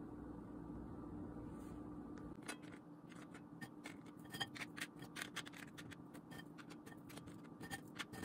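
Crispy fried idly sticks being picked from a bowl and laid one by one on a ceramic plate: a quick run of light, irregular clicks and taps starting a couple of seconds in, over a faint steady hum.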